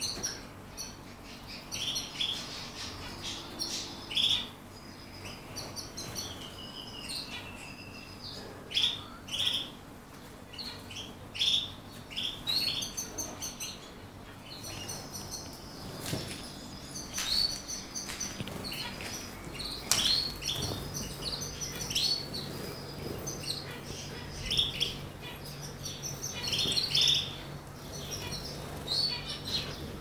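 A flock of canaries in a wire cage calling with many short chirps and tweets, overlapping one another, with a few brief wing flutters and taps against the cage.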